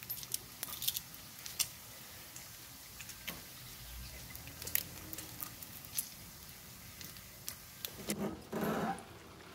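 Bacon frying in a nonstick skillet on a gas camp stove: a steady sizzle with scattered crackling pops, and metal tongs clicking and scraping in the pan. A short, louder, lower sound about eight seconds in.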